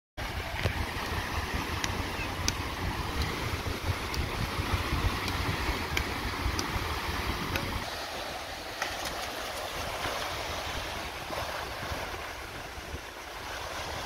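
Small waves breaking and washing up the sand, with wind buffeting the microphone in a low rumble that eases about halfway through. A few sharp taps stand out in the first half.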